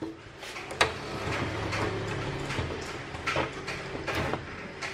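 Twist-lock welding cable plugs being turned and pulled out of the front output sockets of an inverter stick welder: a few sharp clicks of metal and plastic among scraping handling noise.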